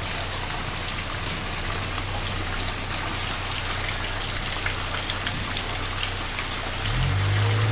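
Heavy rain falling steadily on leaves and ground, with runoff pouring from a pipe spout into the plants. Near the end a vehicle engine starts to rev, rising in pitch.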